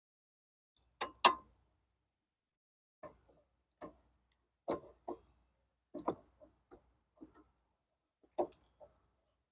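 Hand tools clicking and tapping on metal while undoing the solenoid's wire terminals: scattered short sharp clicks, sometimes in pairs, the loudest about a second in.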